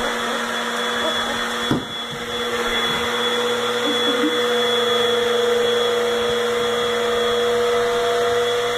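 Vacuum cleaner running steadily, its motor giving a constant whine over a rushing hum. There is a brief knock about two seconds in.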